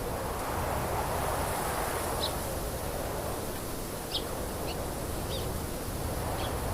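Outdoor garden ambience: a steady rushing noise with a few short, high bird chirps scattered through it.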